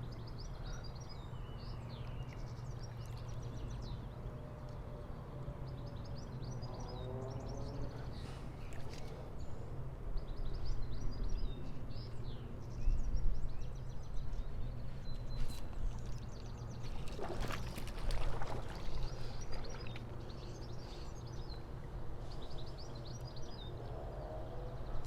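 Small birds singing, repeated high chirping phrases over a steady low rumble, with a short rushing noise about seventeen seconds in.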